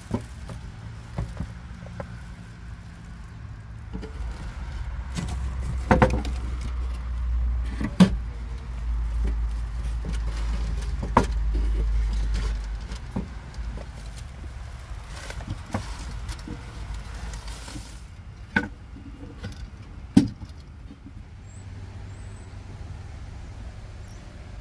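Knocks and light clatter of storage items being handled and set down in an SUV's cargo area, with plastic bags rustling, over a low rumble that swells through the middle and fades after about eighteen seconds.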